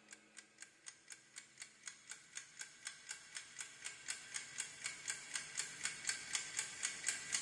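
Clock ticking, fast and even at about four ticks a second and growing steadily louder: a tension effect for a deadline running out.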